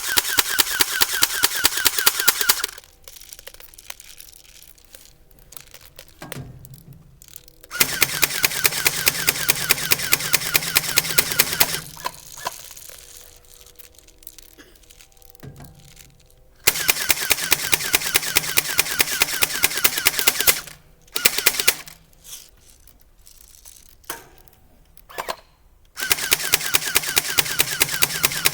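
Airsoft gun firing in rapid fully automatic bursts, four bursts of several seconds each with short pauses between them.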